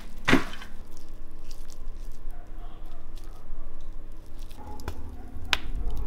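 Soft squishing as rosemary sprigs are pushed into a marinated leg of meat, with a sharp click near the start. About two-thirds of the way in comes a low rumble of a wood fire in a dome oven, with a couple of crackles.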